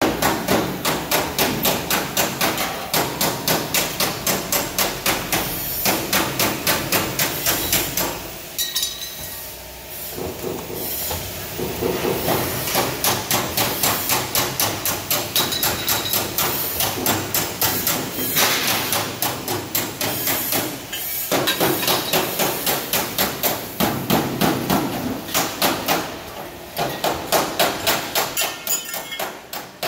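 Hydraulic box-section cutting press shearing steel square and rectangular tube in quick succession: a sharp metallic clack about three times a second, with a short lull about a third of the way in.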